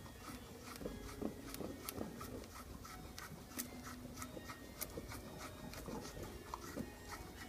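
Knife blade shaving thin curls down a wooden stick while making a feather stick: short, sharp scraping strokes in an even rhythm, about two to three a second.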